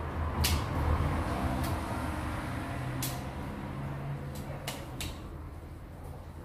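Several sharp clicks and taps as a smartphone and small repair tools are handled on a workbench, over a steady low hum.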